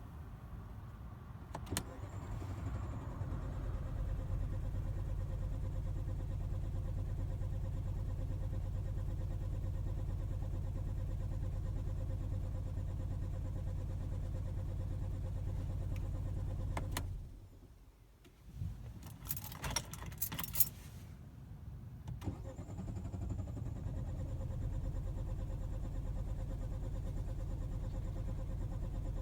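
A car engine is cranked on its starter motor in two long attempts without catching, a sign of a no-start fault. A click comes just before the first attempt, and a short burst of clicks and rattles falls in the pause between the two.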